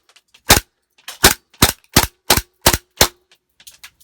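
WE Luger gas blowback airsoft pistol firing seven shots in quick succession, about three a second, each a sharp crack with the toggle action cycling. A few light clicks follow near the end, as the toggle locks back on the emptied magazine.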